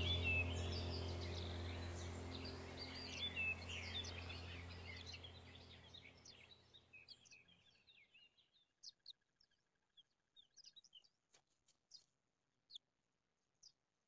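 Music with many small birds chirping fades out over the first several seconds, leaving only scattered short, high chirps.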